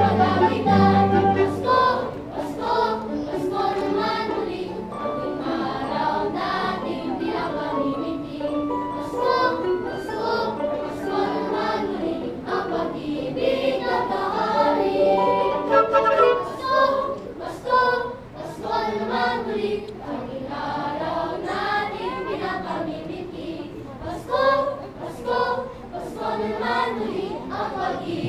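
Choir singing with a live orchestra accompanying it, with sustained low notes underneath for the first couple of seconds.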